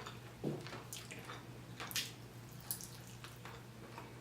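Close-miked eating sounds: wet, irregular mouth clicks and smacks of someone chewing curry chicken, the strongest about two seconds in.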